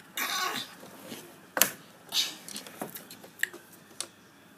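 Handling noise close to the microphone: a short rustle, a sharp click about a second and a half in, another rustle, then several lighter clicks and taps.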